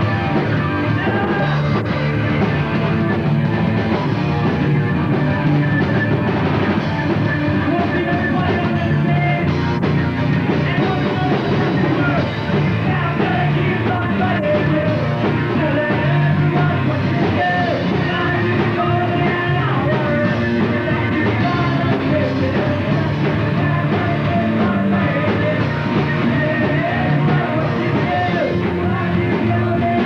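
A live rock band plays loudly without a break, with electric guitar, drums and vocals.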